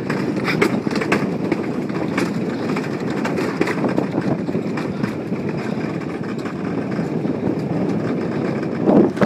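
Alpine coaster sled running fast along its metal rail: a steady rumble of the wheels with frequent rattling clicks from the track.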